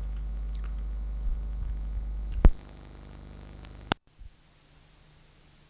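Analog videotape playback noise: a low hum under the end of a recording, a sharp click about two and a half seconds in, then steady hiss. A second click just before four seconds marks the recording running out into blank tape, which leaves only faint hiss.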